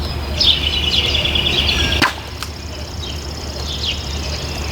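A folding knife's blade strikes a plastic bottle in one sharp chop about two seconds in, followed by a lighter click. A bird trills rapidly in the background just before the chop.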